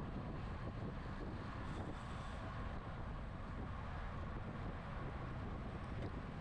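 Steady wind noise buffeting the microphone of a camera riding on a bicycle at racing speed, a constant low rumble with a hiss over it.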